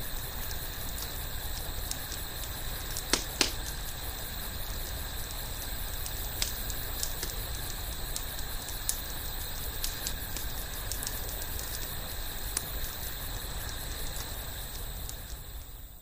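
Campfire crackling: irregular small pops over a steady hiss, with two louder pops about three seconds in. It fades out at the end.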